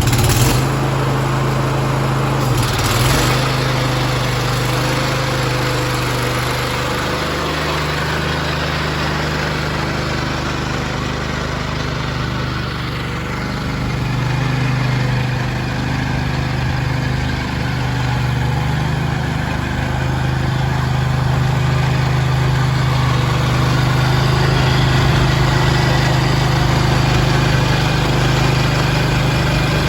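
Vermeer skid steer's engine running steadily, its level swelling and easing a little a few times as the machine works.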